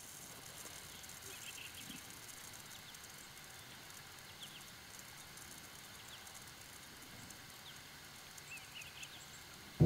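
Faint outdoor field ambience: a soft steady hiss with scattered short, high bird chirps, a few about a second in and a small cluster near the end.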